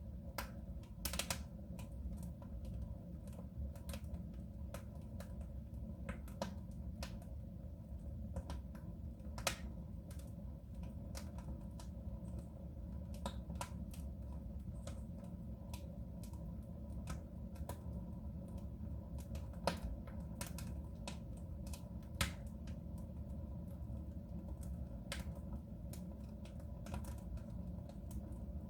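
Wood fire burning in a soapstone stove: irregular crackling and sharp pops over a low steady rumble, with a few louder snaps scattered through.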